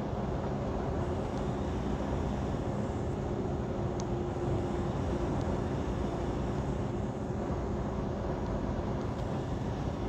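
Steady low drone of a truck's engine and tyres heard from inside the cab while cruising on the highway, with a faint steady hum in it.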